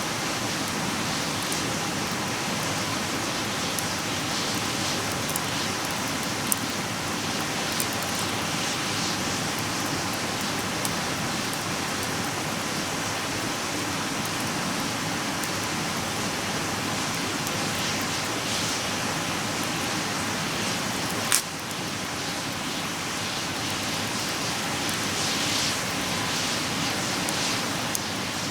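Wood campfire burning in a compact fire stand: a steady hiss with scattered crackles and pops, one sharp pop about three-quarters of the way through.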